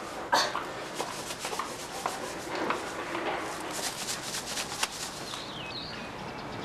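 Rustling and scraping with scattered light clicks and knocks, as of things being handled and moved about. One sharper knock comes about a third of a second in.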